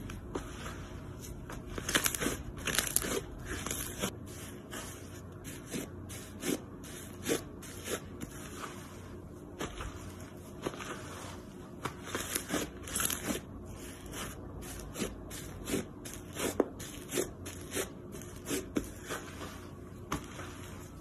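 Thick slime being stretched and pulled by hand, giving off many small crackles and clicks at irregular intervals, with louder clusters a couple of seconds in and again past the middle.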